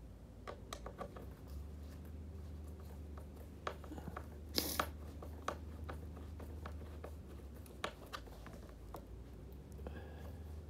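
Small clicks and scrapes of a screwdriver and the plastic parts of a Burton snowboard binding's ankle strap being handled, with one louder scraping rustle a little under five seconds in, over a steady low hum.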